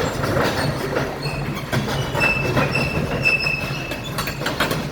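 Pile-driving rig moving along the street: its engine runs steadily under repeated metallic clanks, and a high squeal from the running gear sets in about a second in and stops near the end.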